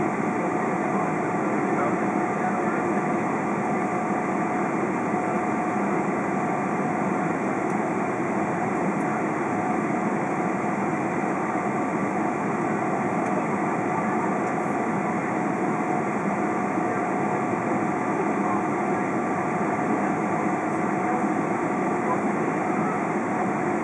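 Cabin noise of a Boeing 777-200 taxiing: a steady rushing hum from the engines at taxi power, with a faint steady whine running through it.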